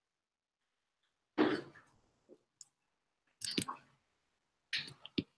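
A quiet room broken by three short, sudden human vocal noises, at about one and a half, three and a half and five seconds in; the first trails off over a fraction of a second.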